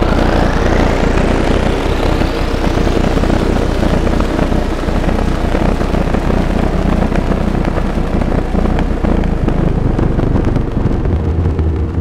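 Make Noise Eurorack modular synthesizer playing a stereo drone patch: a dense, noisy wash over steady low tones. Two rising sweeps climb high in the first few seconds, and the low tones shift about a second before the end.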